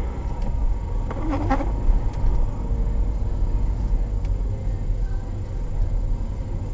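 A car driving slowly, heard from inside its cabin: a steady low rumble of engine and road noise. A brief buzzing sound comes about a second and a half in.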